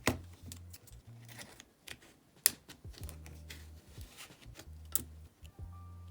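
Light clicking and tapping of plastic picks and a metal prying tool working around the edge of an iPhone 8's screen as it is pried open. Three sharper clicks come about two and a half seconds apart.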